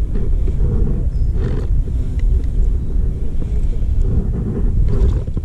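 Water sloshing and splashing around a landing net held in the lake with a fish in it, over a steady low rumble, with a couple of brief splashes.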